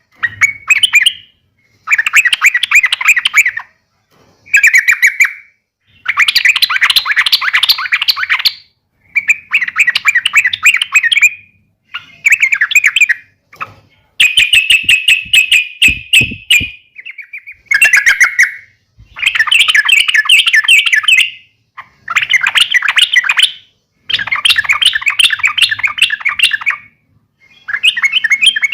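Yellow-vented bulbul (trucukan) giving fighting calls: repeated bursts of rapid chattering notes, each a second or two long, with short pauses between them.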